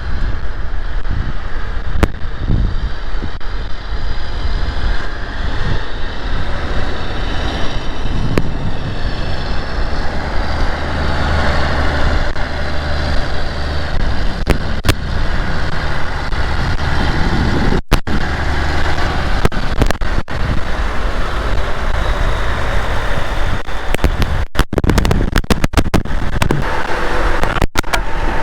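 Heavy diesel engine running steadily under load, with the rumble swelling for several seconds near the middle. It cuts out briefly several times near the end.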